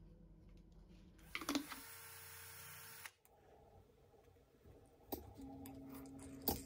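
Faint handling sounds of hands working small parts: a few light clicks and taps, with a steady hiss that cuts off abruptly about three seconds in.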